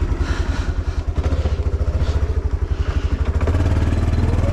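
Four-wheeler (ATV) engine running at a low, pulsing idle, then speeding up about three and a half seconds in, its pitch rising as it pulls away.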